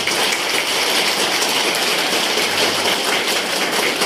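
Audience applauding, a dense steady clapping from a crowd.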